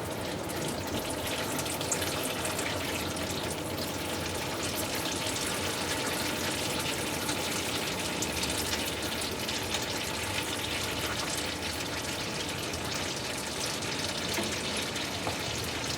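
Automatic transmission fluid pouring steadily out of a 46RE transmission's loosened oil pan as it is drained.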